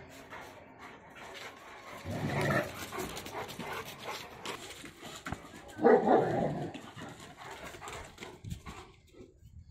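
A St Bernard and a Rottweiler playing, with two loud spells of dog barking about two and six seconds in.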